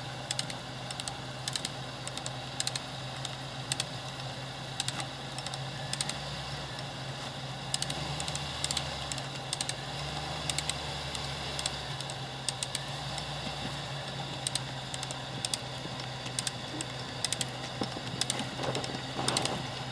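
Hand-operated cable jack (come-along) ratcheting under load as its handle is pumped: sharp metallic clicks, about one or two a second, as the cable winches a stuck truck toward the ground anchor.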